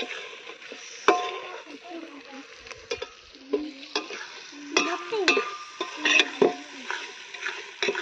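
Metal spatula stirring and scraping chicken in a metal pot over a wood fire, with irregular clinks and knocks against the pot and a light sizzle of the frying food.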